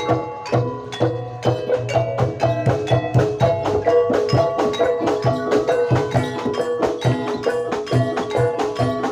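Jaranan Dor ensemble music: rapid, even strokes on pitched metal percussion over repeated low drum beats.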